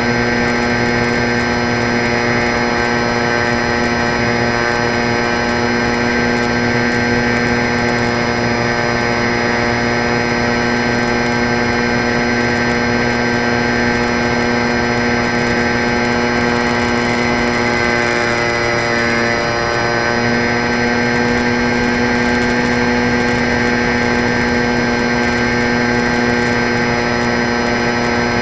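Electric motor and propeller of an EP Falcon 3 R/C plane, heard through its onboard camera: a steady whine that briefly dips in pitch and level about two-thirds of the way through.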